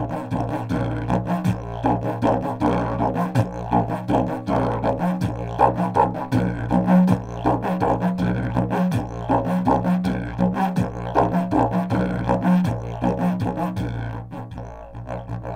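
Didgeridoo droning on a low A (about 55 Hz), played in a steady pulsing rhythm with bright overtone accents over the drone. It is recorded raw through a Lewitt LCT140 Air condenser microphone at 100 cm in its "Air" setting. The playing eases slightly in level near the end.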